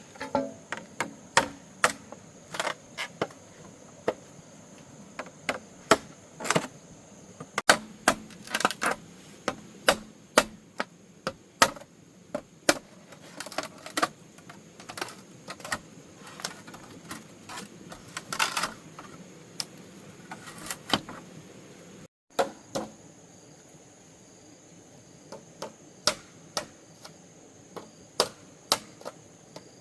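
Irregular sharp knocks and taps of hand-tool work on bamboo, one to three strokes a second with a few quick flurries.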